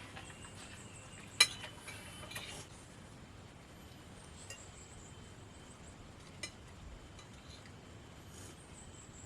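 Cutlery clinking against plates during a meal: one sharp clink about a second and a half in, then a few fainter clinks spread out.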